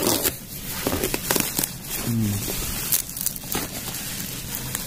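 Plastic bubble-wrap packaging crinkling and crackling as it is handled and pulled back from a boxed mop and broom holder, with irregular sharp crackles throughout.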